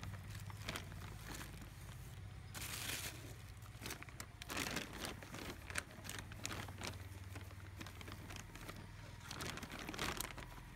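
Polythene bag crinkling and straw rustling in irregular bursts as hands work straw and mushroom spawn into it.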